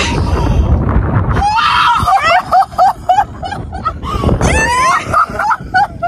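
A person's high-pitched squeals: a quick run of short cries starting about a second and a half in, with a few more near the end, over wind buffeting the microphone.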